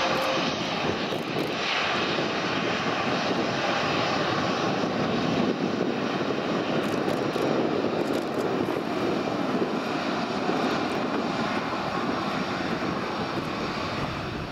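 Airbus A319 airliner's twin jet engines running as it rolls along the runway after landing: a steady jet rush that slowly fades toward the end.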